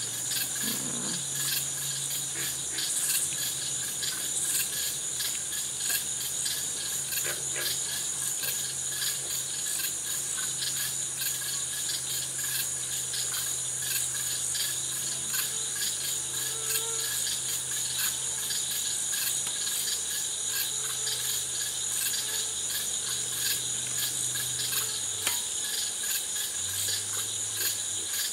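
A chorus of crickets and other night insects trilling steadily in fast, even pulses, over a faint low hum.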